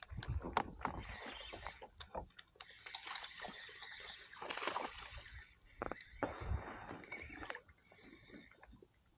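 Water splashing and sloshing at close range, with a few sharp knocks and low thumps, as a hooked fish thrashes at the surface beside the kayak. The splashing stops about a second before the end.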